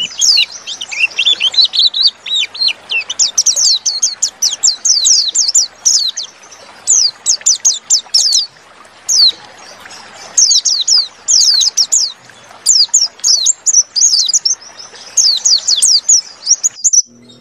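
White-eye (pleci) singing a fast, run-on twittering song of high, quickly falling notes, in long bursts with a short break about halfway through. The sound cuts out briefly near the end. It is the long continuous 'ngalas' style of pleci song, used as a lure to get a quiet pleci singing.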